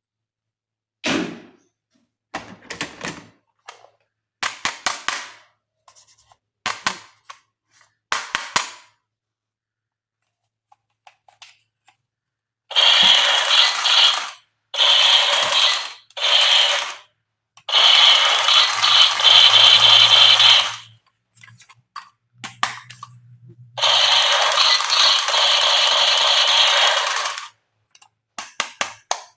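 Plastic electric toy gun, first handled with short scrapes and clicks, then fired in several long rattling bursts of a second or more each.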